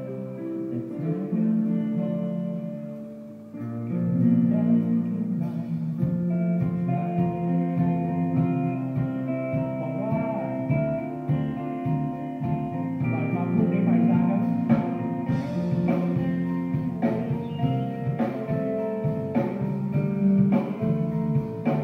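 Live rock band playing through a PA: electric guitars, bass, keyboard and drums. A quieter opening gives way to the full band with drums coming in about four seconds in.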